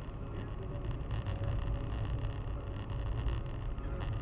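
Steady low rumble of a car driving at highway speed, tyre and engine noise heard from inside the cabin through a dashcam microphone.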